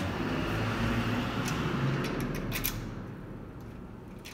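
Steady low rumbling background noise that fades in the last second or so, with a few light clicks and rattles about halfway through as a parked bicycle and its rear-wheel ring lock are handled.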